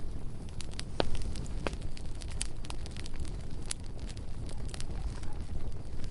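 Bonfire burning, with a steady low rumble and irregular sharp crackles and pops, the loudest pop about a second in.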